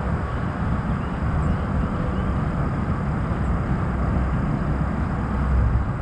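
Steady low outdoor rumble with no distinct events, the kind made by wind on the microphone or distant traffic.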